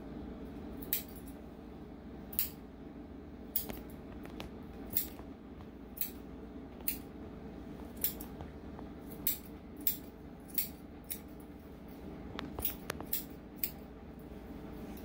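Grooming scissors snipping through a Golden Doodle's thick fur, with sharp single snips about once a second and a quick run of several snips a little after halfway.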